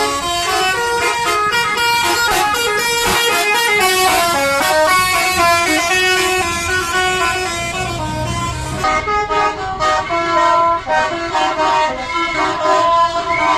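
Telolet bus horns: multi-note musical air horns on Indonesian buses, played in quick melodic runs of stepping notes, several buses answering one another.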